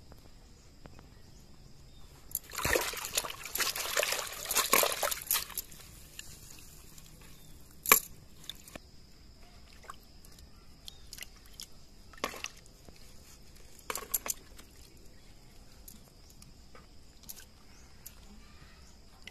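Water sloshing and trickling in a plastic bucket as a hand rinses leaves in it, loudest for about three seconds near the start, with shorter splashes later. A single sharp click about eight seconds in.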